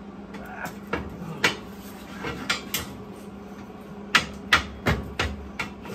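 Metal knocks on galvanized steel Unistrut channel as a piece is tapped to drive it into a frame that it won't quite fit. There are a few scattered knocks, then a run of about five harder blows, two or three a second, starting about four seconds in.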